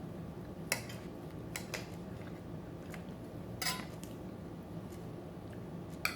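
Cutlery clinking against a dinner plate during a meal: about four short, separate clinks a second or two apart over a steady low room hum.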